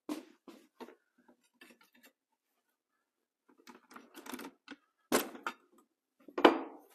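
Tools and parts being handled on a Suzuki TS185 engine crankcase on a workbench: scattered clicks and clatter, with two louder knocks about five seconds in and again near the end.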